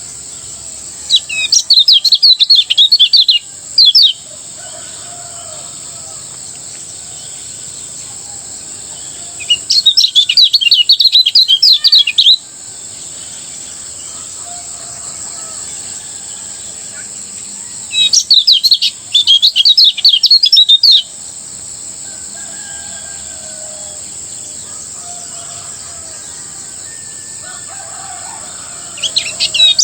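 Kecial kuning white-eye singing its fast, rapid-fire chirping song in three loud bursts of two to three seconds each, with a fourth starting at the very end. A steady high insect drone runs underneath.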